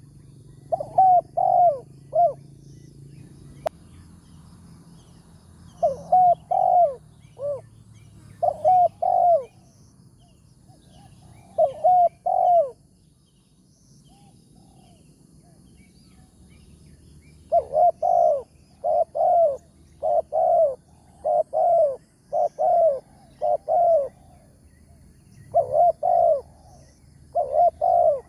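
Spotted doves cooing in short phrases of two or three notes, repeated every few seconds, with a pause midway and then a longer, denser run of calls in the second half.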